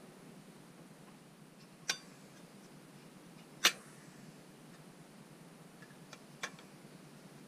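Three sharp metallic clicks as metal exhaust end-cap parts are knocked together while being fitted by hand, the middle one loudest.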